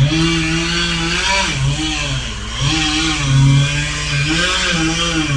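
Engine of the tree crew's power equipment running, its pitch rising and falling over a steady low rumble.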